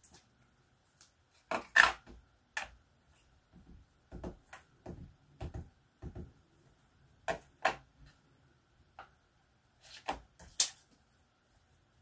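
Scattered clicks and light knocks of stamping supplies being handled while inking and stamping a clear stamp, about a dozen of them, the loudest about two seconds in and near the end.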